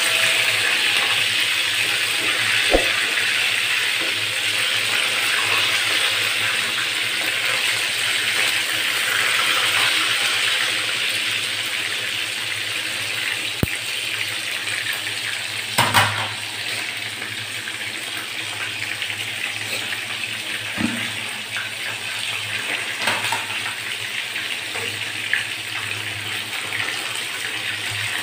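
Chicken pieces frying in hot oil in a pan, a steady sizzle, with a few scattered clicks and knocks of tongs against the pan.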